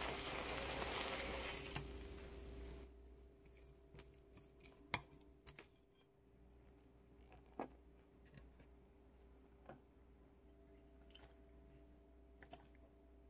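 Kimchi pancake sizzling in oil in a frying pan, an even hiss that cuts off abruptly about three seconds in. Then a metal spoon clinks against a glass bowl about half a dozen times as pancake flour and water are spooned in.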